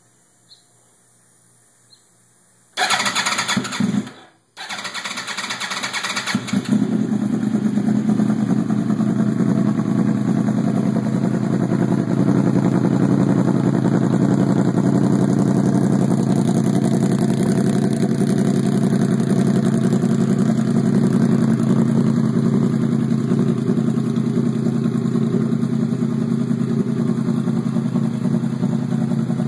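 A 2009 Yamaha R1's crossplane inline-four, breathing through a Hotbodies MGP Growler aftermarket exhaust, is started about three seconds in and, after a brief dip, settles into a steady idle.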